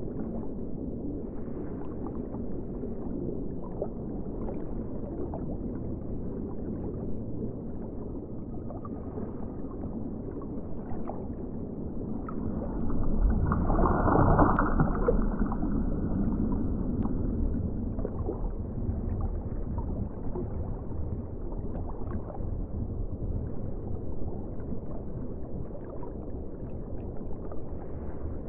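Underwater ocean ambience: a steady, muffled low rumble of moving water that swells louder for a few seconds about halfway through.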